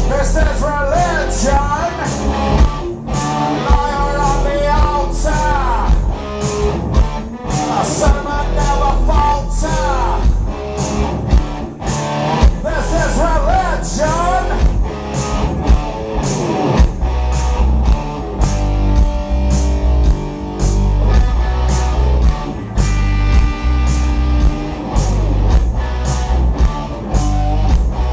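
Live rock band playing: a male singer's voice over guitar and drums for about the first half, after which the singing stops and the band plays on instrumentally.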